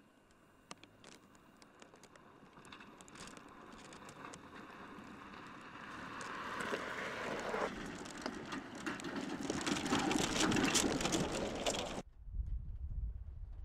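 Ford Bronco SUV on big off-road tyres driving up a dirt track, tyres crunching and popping on gravel, louder and louder to a peak about ten seconds in. It cuts off suddenly near twelve seconds, replaced by a low engine rumble as the truck crawls over rocks.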